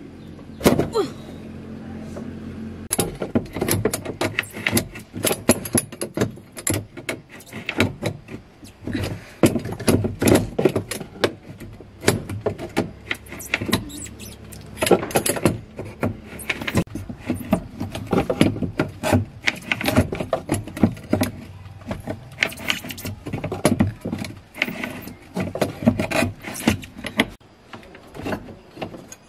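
Irregular metallic clanks, taps and scrapes of a screwdriver and loose metal parts being worked against a car's rear-seat frame and floor pan, with a few squeaks of metal rubbing.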